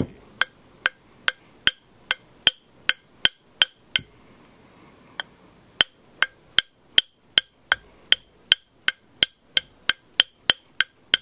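Non-marring hammer striking the Novak rear sight of a Smith & Wesson third-generation pistol slide, drifting the sight sideways out of its dovetail. Sharp, ringing metallic taps come at a steady beat of about two and a half a second, with a short pause about four seconds in.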